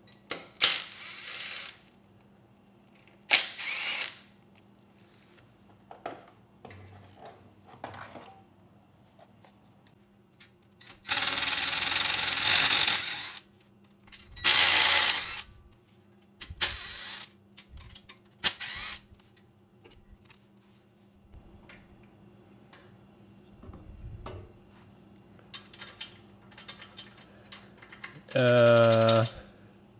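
Ryobi 1/4-inch cordless impact driver running in several short bursts as it backs out the valve-cover bolts of a Briggs & Stratton OHV engine. The longest burst is about 11 seconds in, with small clicks and handling noises between runs. A brief pitched sound comes near the end as the cover comes off.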